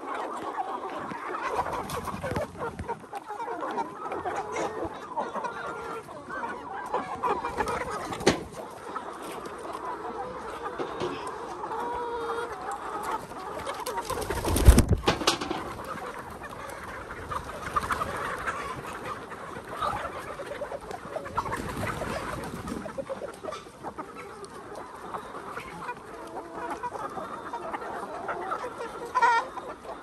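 A large flock of chickens and roosters clucking continuously as they crowd around feed. There is a brief loud burst of noise about halfway through.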